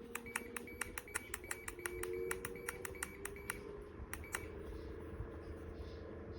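A rapid series of short clicking beeps, about four a second, that stops a little after four seconds in, with two more near the end, over a steady low electric hum.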